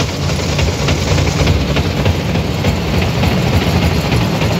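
Forage harvesting machinery running steadily while chopped corn silage fills a forage wagon: a loud, even engine drone with a rattling, rushing noise over it.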